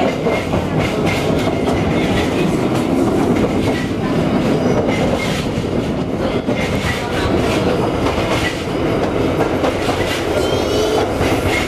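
Electric streetcar running along its track, heard from aboard: a steady rumble with the wheels clicking and clattering over the rails.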